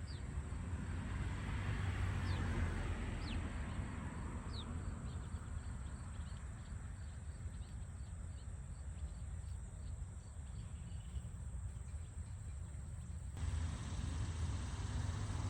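Garden birds giving short, high, falling chirps, a handful in the first five seconds, then fainter quick high notes, over a steady low rumble of outdoor background noise.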